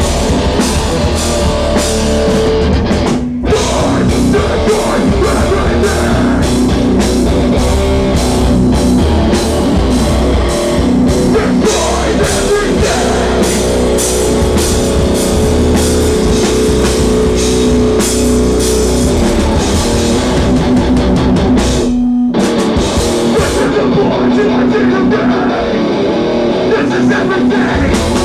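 Hardcore band playing live and loud: distorted guitars and bass over fast, pounding drums. The band stops dead for an instant twice, about three seconds in and about twenty-two seconds in.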